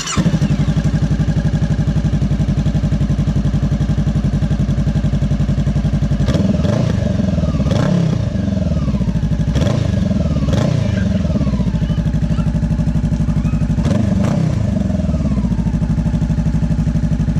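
2013 Honda CBR500R's parallel-twin engine running through a freshly fitted Coffman shorty slip-on exhaust: it starts and idles, is revved in a series of quick throttle blips from about six seconds in, then settles back to a steady idle.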